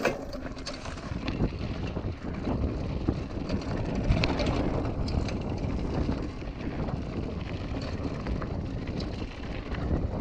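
Kona Manomano mountain bike rolling along a dry dirt and gravel trail: a steady rumble of tyres over the ground with scattered small clicks from loose stones, and wind on the microphone.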